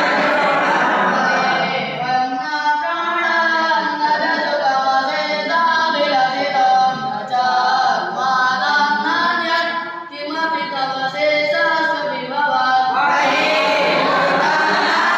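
A group of young boys singing an aarti hymn together in unison, unaccompanied. The many voices blur into a dense mass at the start and again about thirteen seconds in, with a clearer sung melody between.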